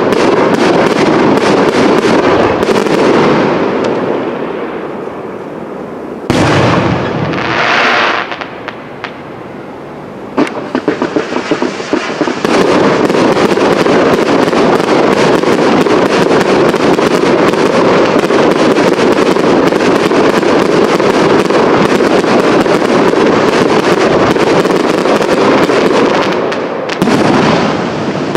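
Professional fireworks display: a dense barrage of shell bursts and crackling. It eases a few seconds in, then comes a single loud bang followed by a couple of seconds of hiss. A few separate bangs follow, then an unbroken crackling barrage.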